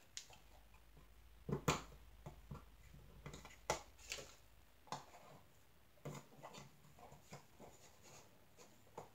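Faint handling noises: scattered light clicks and taps as fingers pick rubber bands from a small plastic bag and fit them onto a wooden tray holder, with two sharper clicks in the first four seconds.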